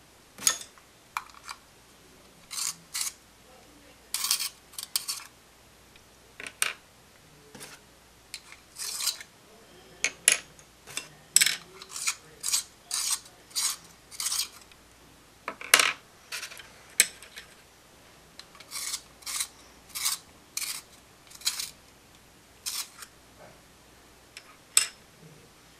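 Wooden pencils and small drawing supplies being picked up, shuffled and set down on a wooden drawing board: a long irregular run of short, dry clicks and rubs, some in quick pairs.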